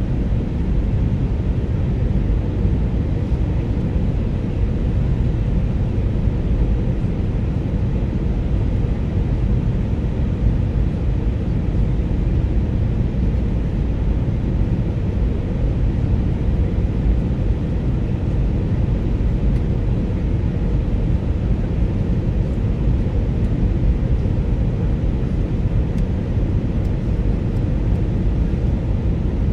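Steady low rumble of engine and air noise inside the cabin of an Airbus A319 airliner.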